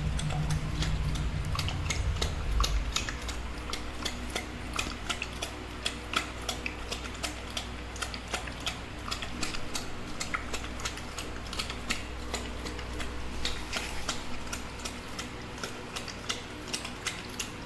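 Pit bull eating dry food: a run of irregular crunches and sharp clicks, several a second, over a low rumble that is louder in the first few seconds.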